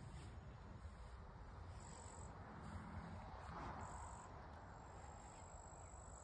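Faint high-pitched insect trilling, typical of crickets, coming in a few short bursts and one longer stretch in the second half, over a low rumble.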